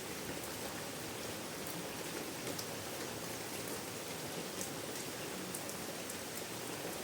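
Steady rainfall, an even hiss of rain with scattered drop ticks on surfaces.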